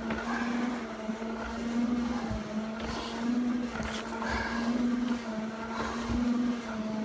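A firefighter breathing on air through a full-face SCBA mask, with a couple of hissing inhalations through the regulator. Beneath them runs a steady machine hum that swells in a regular beat about every second and a half.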